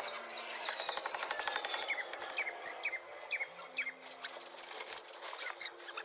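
Small bird chirping: a run of short, high chirps, each sliding down in pitch, about two a second.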